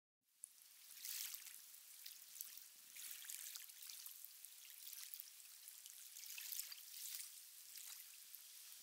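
Faint, hissing wash of surf on a sandy beach, fading in from silence just after the start and swelling gently a few times.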